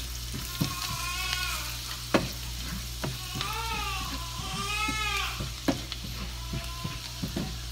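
Chopped onions and spices sizzling in butter in a nonstick frying pan, stirred with a silicone spoon that knocks against the pan a few times, the sharpest knock about two seconds in. A baby cries over it in several short wavering wails.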